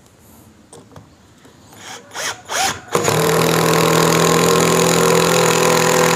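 Ingco S12 (CIRLI1201) 12-volt cordless impact driver sinking a 3-inch screw into mahogany without a pilot hole. It gives a couple of short blips about two seconds in, then its impact mechanism hammers steadily from about three seconds in as the screw drives home.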